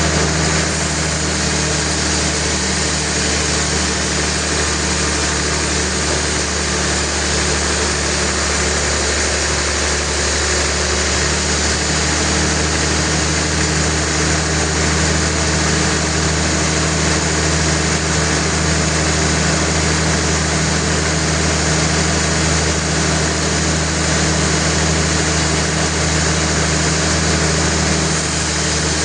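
Sawmill machinery running steadily: a constant engine hum under a dense whirring noise, unchanging throughout.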